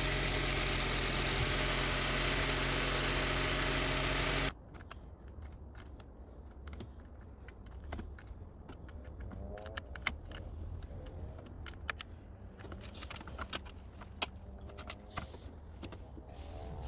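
Honda CR-V 2.4-litre four-cylinder engine running steadily, stopping abruptly about four and a half seconds in. After that come scattered light clicks and a metallic jingle, like keys and small parts being handled.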